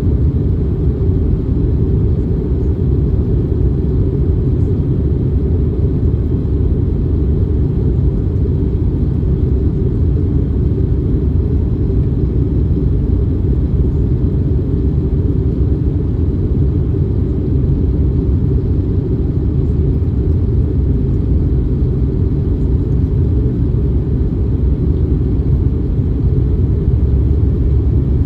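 Cabin noise inside an Airbus A321neo in flight: a loud, steady, low rumble of airflow and engines that does not change.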